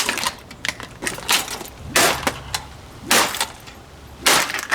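Plastic SMC table fan being smashed: about five hard, cracking blows roughly a second apart, with plastic breaking.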